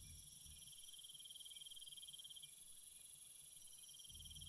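Faint insect chorus with a steady, high-pitched chirring trill, typical of rainforest night ambience. The strongest trill drops out about halfway through and comes back near the end.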